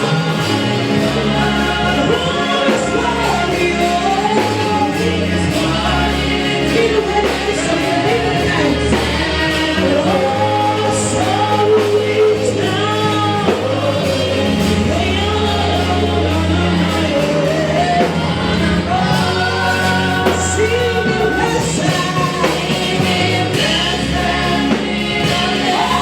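Gospel worship song, live: sung vocals over a band with a steady bass line.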